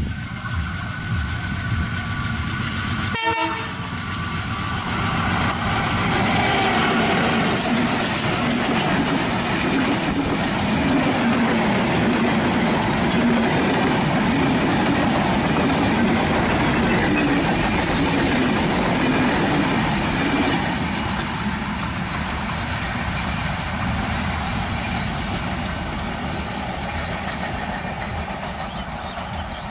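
A diesel-hauled passenger train's horn sounds for the first few seconds. After a short break, a Bangladesh Railway intercity train of PT INKA coaches passes close at speed, its wheels clattering over the rail joints; the noise builds, holds for about fifteen seconds, then fades as the train moves away.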